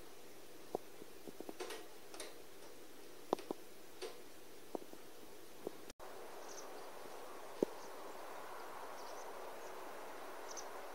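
Wood fire in a fireplace crackling, with sharp pops at irregular intervals. About six seconds in, the sound cuts to a steady hiss with a few faint high chirps and one more click.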